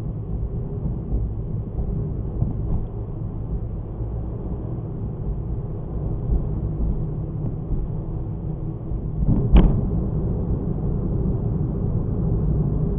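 Car driving, picked up by a dashcam's microphone: a steady low rumble of engine and road noise, with one sharp thump about nine and a half seconds in.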